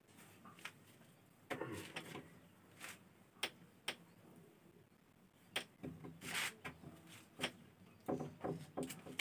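Cloth rubbing across a whiteboard to erase it, with two longer wiping sounds, about a second and a half in and about six seconds in, among scattered knocks and taps.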